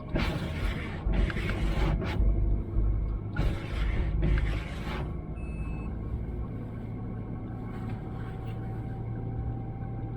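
Inside a Great Wall Hover H3 on the move: heavy rumbling noise in bursts over the first five seconds, then a steadier engine and road drone with a faint thin whistle, the worn idler pulley whistling.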